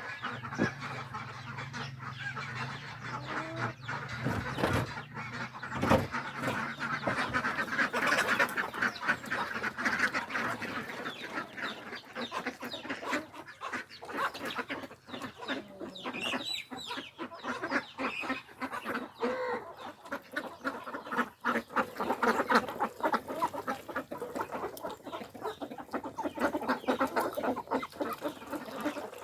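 Farmyard poultry calling: chickens clucking and ducks quacking, a busy stream of short calls.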